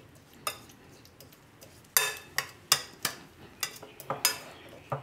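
Metal spoon stirring a thick, oily pickle mix in a glass bowl, clinking sharply against the glass several times, most often in the second half.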